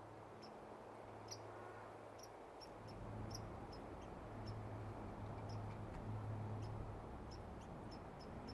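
Baby squirrel squeaking: short, high-pitched chirps repeated irregularly, about three a second.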